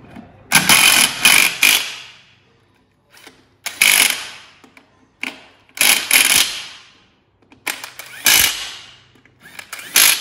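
Impact wrench hammering wheel nuts onto a steel wheel, in about six bursts of roughly a second each, with short pauses between them.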